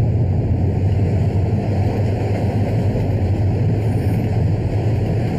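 Subway train pulling into an underground station and running along the platform: a steady, loud, deep rumble. It is the vibration the deaf speaker says tells her a train is arriving.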